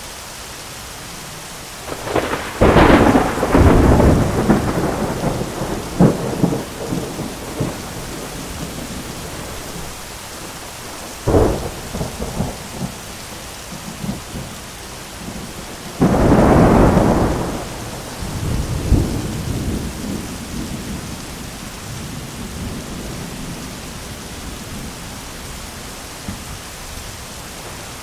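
Heavy rain falling steadily under thunder: a long crackling, rumbling peal about two seconds in that rolls on for several seconds, a sharper crack near the middle, and another loud rumbling peal about two-thirds of the way through.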